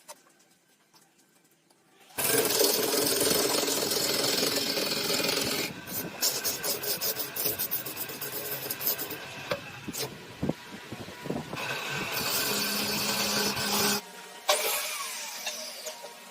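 A hand or power tool working a piece of wood. Stretches of steady abrasive noise start about two seconds in and break into scattered clicks and knocks midway. The noise resumes and then stops, followed by a single sharp knock.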